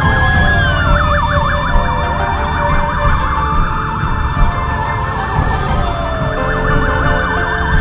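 Electronic emergency-vehicle sirens sounding, overlapping: slow wailing glides up and down, breaking into a fast yelp about a second in and again near the end, over steady low background noise.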